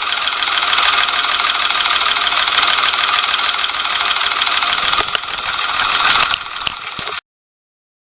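Daihatsu S201P Hijet's three-cylinder engine running with a steady rattling, knocking noise: the abnormal noise of an engine that will not rev up freely.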